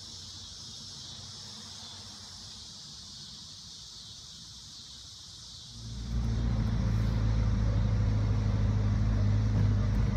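Cicadas droning in the trees, a steady high buzz; about six seconds in it cuts abruptly to a much louder low rumble.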